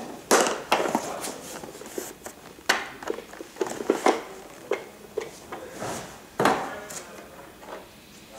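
Hard plastic parts of a canister vacuum cleaner being handled and fitted together: a string of separate clicks and knocks, the loudest near the start and about six and a half seconds in. The motor is not running.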